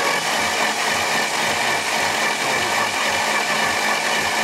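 Car engine being cranked over by its starter motor during a compression test: a steady mechanical whir with a faint low pulse a few times a second. The compression gauge on this cylinder reads zero, taken as the sign of a blown engine.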